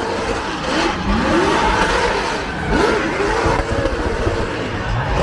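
Drift car engine revving, its pitch rising and falling in several quick swells.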